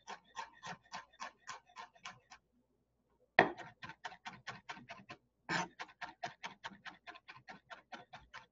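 Chef's knife mincing garlic cloves on a wooden cutting board: quick, even chopping taps, about four or five a second. The taps pause briefly a little after two seconds in and start again with a hard knock, and there is a second hard knock about halfway through.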